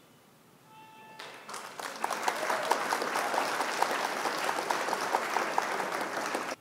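Applause sound effect: a crowd clapping, swelling in over about a second and stopping abruptly near the end, preceded by a brief faint tone. It marks the answer reveal of a quiz question.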